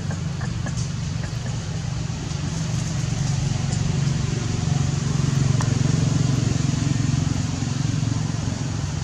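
A low engine rumble, likely from a motor vehicle, runs throughout, growing louder about halfway through and easing off near the end. A faint high hiss and a few small clicks sit above it.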